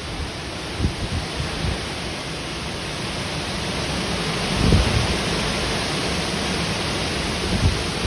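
Storm noise: a loud, steady rushing hiss of wind and weather, with gusts buffeting the microphone three times, cutting off abruptly at the end.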